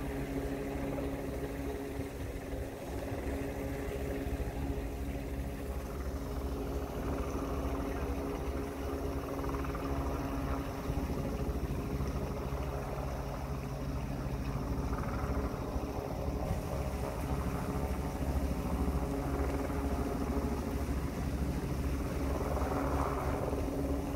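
An engine running steadily, a constant low rumble with a held hum.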